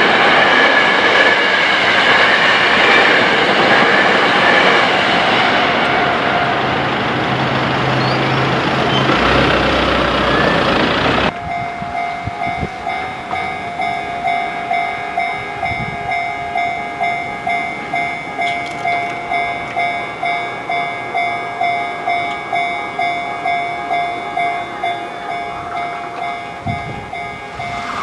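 An Eizan Electric Railway train running past with steady rail and motor noise. About eleven seconds in, this abruptly gives way to a Japanese level crossing's electronic warning bell ringing in a steady rhythm, about two strikes a second.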